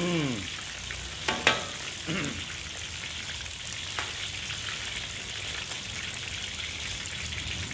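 Chicken thighs and sweet potato fries deep-frying in a wok of hot oil: a steady bubbling sizzle, with a few sharp clicks between one and two seconds in.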